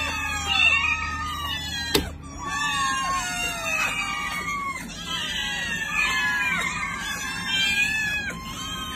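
A large group of kittens meowing all at once, many high, rising-and-falling cries overlapping in a continuous chorus, with one sharp click about two seconds in.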